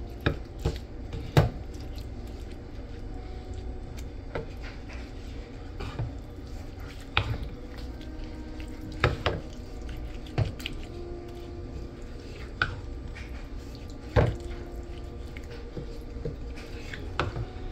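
Wooden spoon stirring a thick, wet corn batter in a glass mixing bowl, with about ten sharp knocks of the spoon against the glass spread through the stirring.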